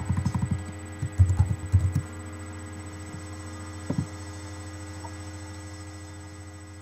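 A steady electrical hum with a cluster of dull thumps in the first two seconds and one more about four seconds in; the hum slowly fades toward the end.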